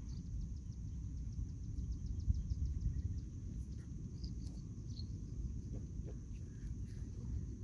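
Outdoor field ambience: wind rumbling on the microphone, over a steady high drone of insects, with a run of fast faint chirps in the first few seconds.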